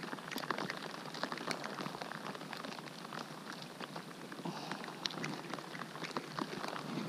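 Steady rain falling on a lake: a dense patter of many small drop ticks over a soft hiss.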